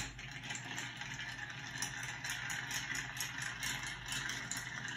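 Bar spoon stirring ice cubes in a glass mixing pitcher: a steady run of quick, light clinks and rattles of ice against glass as a cocktail is stirred to chill.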